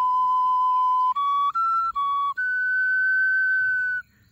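A small hand-held flute plays a slow, breathy-pure melody of long held notes. It steps up and back down through a few pitches, then holds a longer, higher note that stops about four seconds in.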